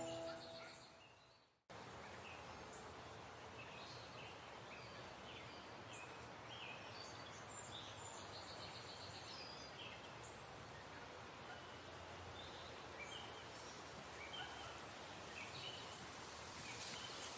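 Music fades out in the first second or so, then faint outdoor ambience: a steady hiss with many short, high bird chirps scattered throughout.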